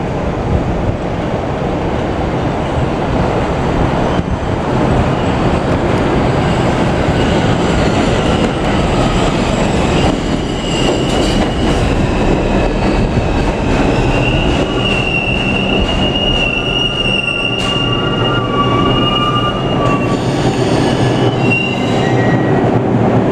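Bombardier R142 subway train pulling into an elevated station: a steady rumble and clatter of wheels on rail as it runs in along the platform, then a long high squeal while it brakes, ending as the train comes to a stop near the end.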